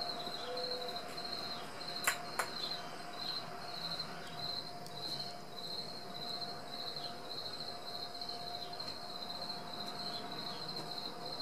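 Insect chirping steadily, about two chirps a second, over a steady hum, with two sharp clicks about two seconds in.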